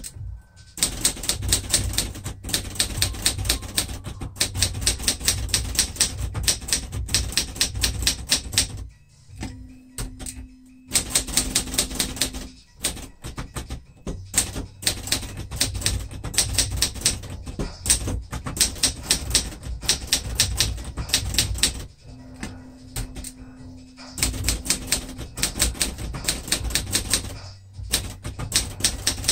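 Cursive Adler J5 manual typewriter being typed on in fast, dense runs of key strikes, broken by a few short pauses.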